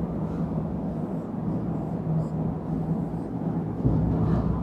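Steady low background rumble with a faint steady hum.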